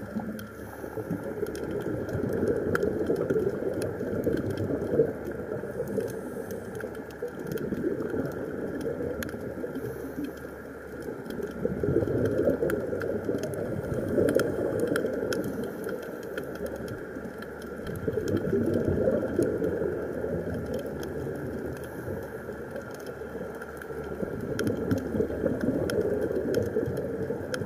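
A scuba diver's exhaled bubbles heard underwater: a rough rushing swell that rises and fades about every six seconds, with faint clicks throughout.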